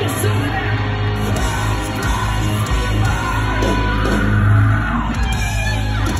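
Loud live hard rock band (electric guitar, bass and drums) playing with yelling voices over it, as recorded by a phone in the audience.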